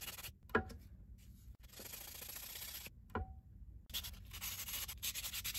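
Wet sandpaper rubbed by hand over a resin 3D-printed part, a scratchy hiss of quick back-and-forth strokes in two spells with a pause in the middle. Two short knocks, one near the start and one about three seconds in.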